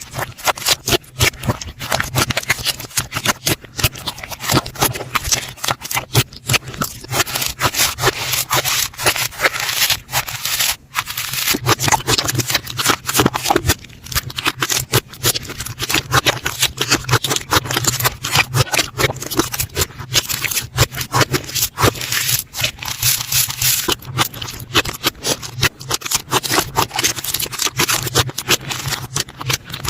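Slime being squeezed and kneaded by hand: a dense, continuous run of sticky crackles and small pops.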